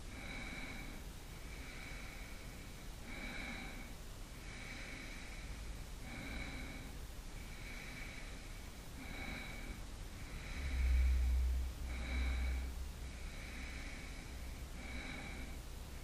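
A person breathing close to the microphone, in and out about every one and a half seconds, with a faint whistle on each breath. A louder low rumble comes in for about two seconds past the middle.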